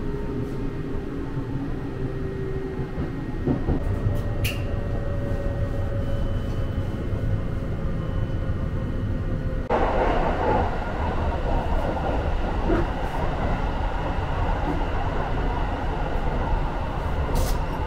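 Interior running noise of the Sunrise Seto sleeper train, a 285 series electric multiple unit, under way: a steady low rumble with a few light clicks. About ten seconds in, the noise steps up suddenly and turns louder and hissier, as happens nearer the ends of a car or a gangway.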